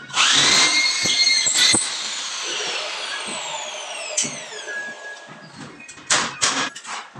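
Electric drill driving a screw through fiber-cement board into a metal stud: the motor speeds up to a steady whir for about a second and a half, then winds down slowly with a falling pitch. Near the end come several short, loud bursts as the drill bites into the board again.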